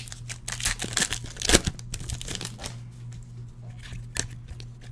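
Football trading cards and their pack wrapper handled by hand: crinkling and rustling with sharp clicks as cards are slid through a stack, busiest in the first three seconds and with one distinct click about four seconds in. A steady low electrical hum runs underneath.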